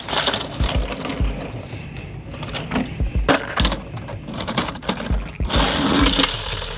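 Toy trucks handled and pushed across a wooden board: repeated clicks, knocks and clatter of small hard parts, with stretches of scraping as the wheels roll on the wood.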